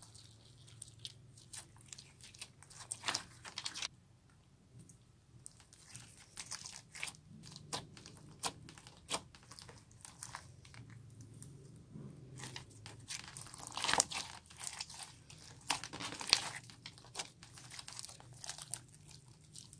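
Slime being squished and kneaded by hand, giving irregular sticky crackles and small pops, louder and denser for a few seconds past the middle.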